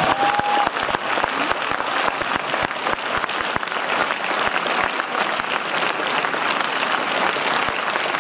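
Cinema audience applauding steadily: many hands clapping together in a dense, even wash.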